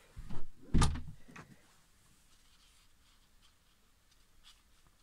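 A few dull thuds and one sharp knock within the first second and a half, as the handheld camera is moved against nearby surfaces, then only faint room noise with small ticks.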